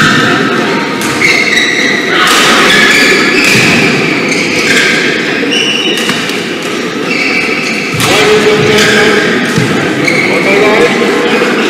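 Badminton shoes squeaking and thudding on a court floor, with many short squeaks throughout, over a steady murmur of voices in a large, echoing sports hall.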